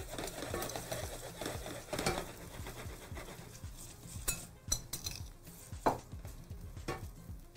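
Irregular clinks and scrapes of a metal spoon against a glass mixing bowl and a ceramic bowl as chopped cecina is mixed and spooned out, with a spatula stirring cream in a skillet.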